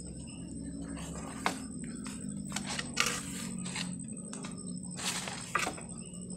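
Footsteps and rustling through leaf litter and undergrowth, with a handful of short, sharp crunches or snaps, over a steady low hum.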